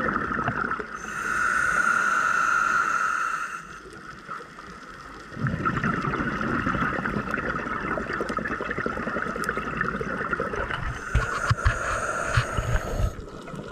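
Scuba diver breathing through a regulator underwater: the tail of a bubbling exhale, a hissing inhale about a second in, a short pause, a long burble of exhaled bubbles, then another hissing inhale near the end.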